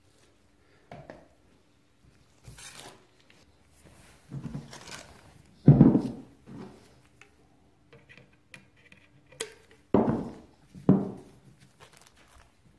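Gloved hands handling engine parts on a wooden workbench: a string of dull knocks and clunks as parts are moved and set down, the loudest about six seconds in, with two more a second apart near the end.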